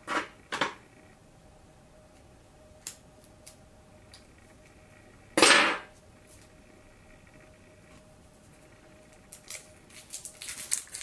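Small hard objects handled and set down on a tabletop: a few light clicks and ticks, one louder clatter about halfway through, and a run of quick ticks near the end, over a faint steady hum.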